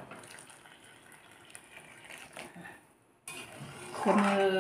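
Water being poured from a steel saucepan into curry in a steel kadai, faint. About four seconds in, a metal ladle scrapes and stirs against the steel pan, much louder, with a ringing tone.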